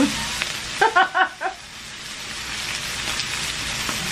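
Pork belly, with whole garlic cloves and shiitake mushrooms, sizzling steadily in a frying pan. A short voice breaks in about a second in.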